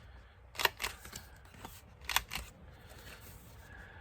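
Paper crafting at the desk: card stock being handled and worked, with two pairs of sharp clicks, about two-thirds of a second in and again around two seconds in.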